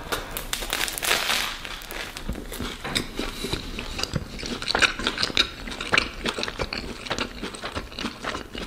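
Close-up eating of a bratwurst in a crusty Kaiser roll: chewing with a run of small crunches and sharp mouth clicks.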